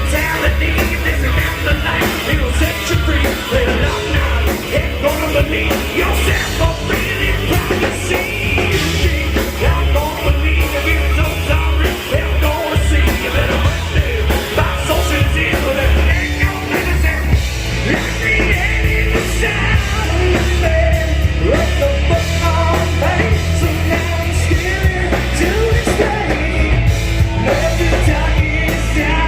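Rock band playing a loud hard-rock song: distorted electric guitars, bass guitar and drum kit, with a male lead vocalist singing forcefully over them.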